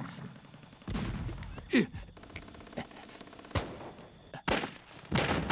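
Scattered single gunshots, about six separate reports spread a second or so apart.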